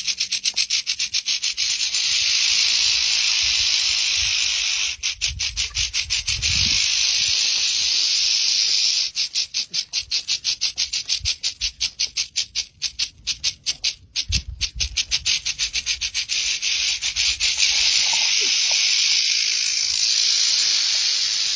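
A loud, steady high-pitched hiss that pulses rapidly through long stretches, with two brief low rumbles, about six and fourteen seconds in.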